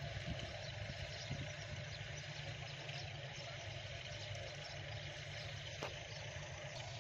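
A steady low mechanical drone, unchanging throughout, with one faint sharp click near the end.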